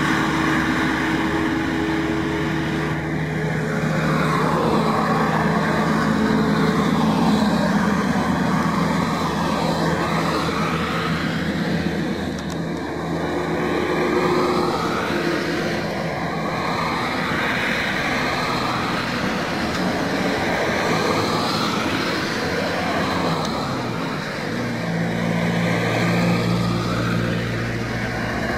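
Road vehicle, most likely a bus, running steadily at highway speed: a continuous engine note under tyre and road noise that swells and eases every few seconds.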